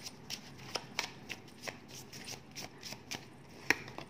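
A deck of oracle cards being shuffled and handled: a run of quick, irregular card snaps and flicks, about three or four a second, with one sharper snap near the end.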